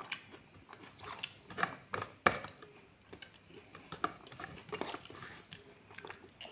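A person chewing and smacking while eating pork and rice by hand, with irregular wet clicks of the mouth. A sharp click about two seconds in is the loudest sound.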